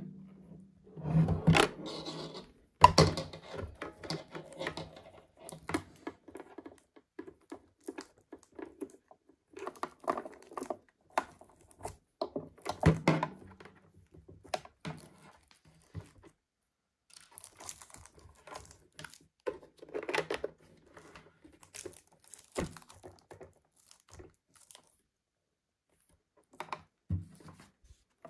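Plastic packaging being handled: irregular crinkling and tearing with occasional knocks and thunks.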